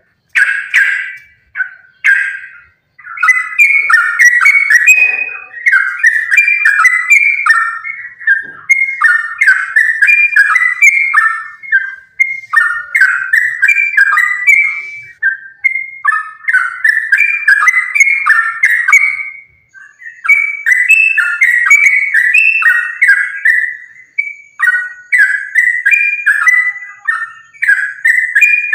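Yellow-vented bulbul (trucukan) singing long, rapid runs of bubbly, chattering notes that jump in pitch, broken only by brief pauses: the continuous 'gacor' song used to provoke other bulbuls to sing.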